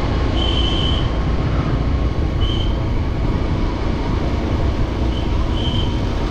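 Motorcycle being ridden at a steady low speed: a continuous low rumble of engine and wind noise on the microphone. A few short high-pitched beeps sound over it.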